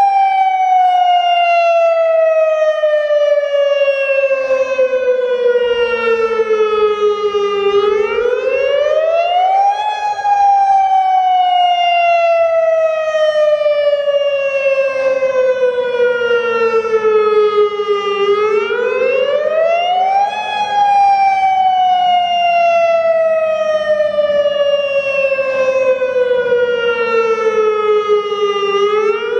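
Federal Signal Modulator 6048 electronic outdoor warning siren sounding its Attack signal: a wail that rises quickly over about two seconds, then falls slowly over about eight, three times over. The unit has blown drivers.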